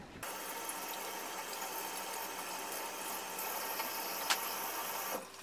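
Steady machine hum with an even hiss, starting abruptly just after the start and cutting off abruptly near the end, with one faint click partway through.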